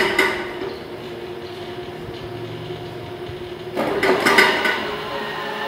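60V 800W brushless electric motor driving a rear axle through its differential, running under throttle with a steady whine. It swells louder right at the start and again about four seconds in.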